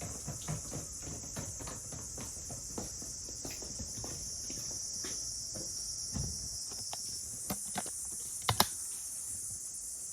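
Insects chirring steadily in a high, even chorus, with scattered small irregular crackles and clicks over it and a sharper double crack about eight and a half seconds in.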